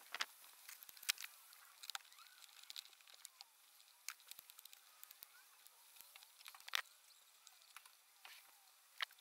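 Scattered light clicks and rustles of hands handling a speaker wire against plastic trim, with a few sharper ticks among them, over a faint hiss.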